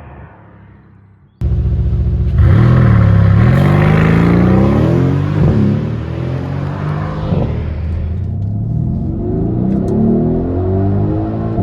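Mercedes-AMG GLC 63 S twin-turbo V8 accelerating hard. The sound cuts in abruptly about a second and a half in, and the pitch climbs through the gears with two quick upshifts. It then settles to a steadier pull and starts climbing again near the end.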